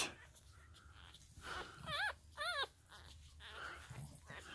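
Newborn Boston Terrier puppies squeaking: two short, high cries about two seconds in, each rising then falling in pitch.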